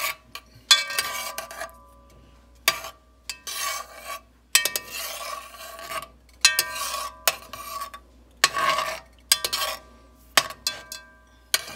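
Metal spoon stirring and scraping melting butter around a metal pot in repeated short strokes, the pot ringing with each scrape.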